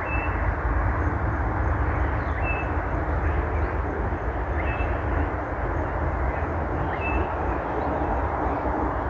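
Steady outdoor rushing noise with a heavy, uneven low rumble. Over it, a bird gives a short high note about every two seconds.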